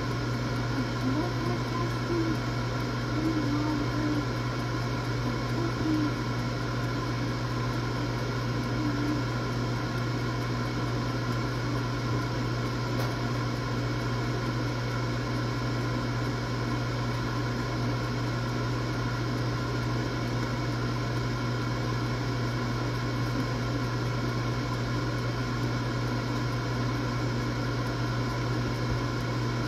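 Air fryer running with a steady, even hum.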